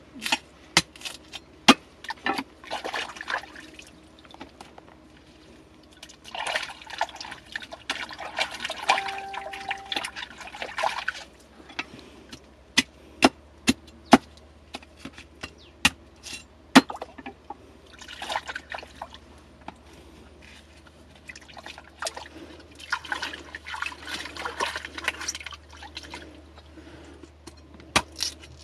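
Hands splashing in shallow stream water in several spells of a few seconds each, with sharp single knocks of a cleaver at intervals between them.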